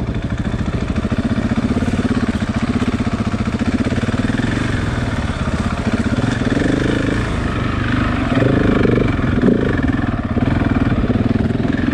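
KTM 690 single-cylinder engine running at low revs while riding slowly on a trail, with the throttle eased on and off a few times in the second half.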